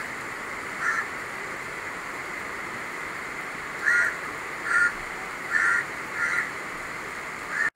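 Heavy rain falling in a steady hiss, with a crow cawing five times in short calls, once about a second in and four more in the second half.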